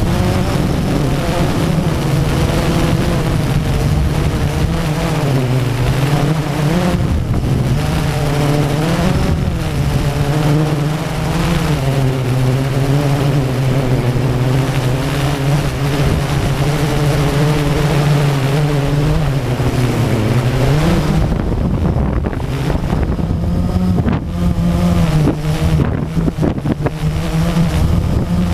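Drone's electric motors and propellers buzzing close to the onboard camera, the pitch dropping and rising several times as the throttle changes. Wind rushes over the microphone, turning rough and crackly in the last several seconds.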